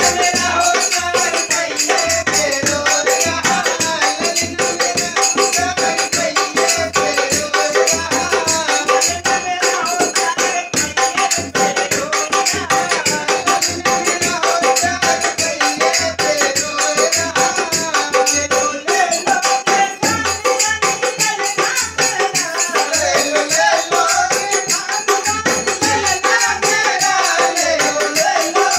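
Live folk song: singing over a dholak beat, with jingling, rattling percussion.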